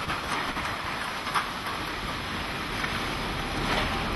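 Steady rush of hurricane wind and rain around a vehicle driving on wet streets, with short louder bursts about a second in and near the end.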